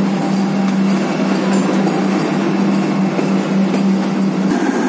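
Vande Bharat electric train set standing at a platform and humming: a steady hum over a broad rushing noise, the hum cutting out about four and a half seconds in.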